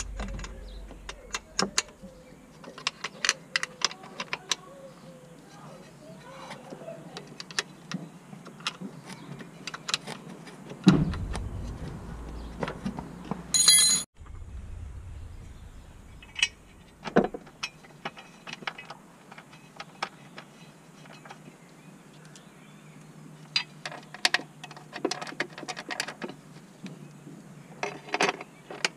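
Hand tools and metal fasteners clinking and knocking against the car's underbody: scattered metallic clicks and clanks, with a heavier knock about eleven seconds in and a short ringing clink around fourteen seconds.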